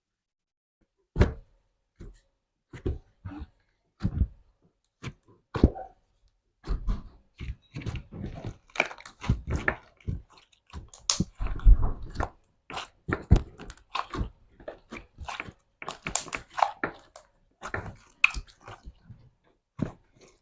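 Crunchy slime being pressed and squeezed close to the microphone, giving irregular sharp crackles and clicks. They come a few at a time at first and run almost continuously from about a third of the way in.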